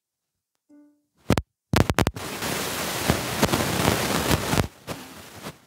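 Microphone handling noise as a handheld mic is passed from hand to hand. It starts with a few sharp knocks, then about three seconds of loud rustling crackle and hiss, which drops to a softer hiss near the end.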